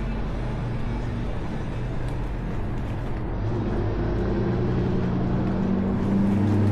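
City street traffic noise, with a motor vehicle's engine hum growing louder over the last few seconds.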